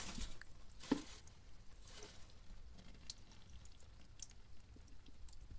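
Faint clicks and light scraping of a screwdriver working the cover screws on a Yanmar 3YM30's raw-water pump, with a sharper knock about a second in.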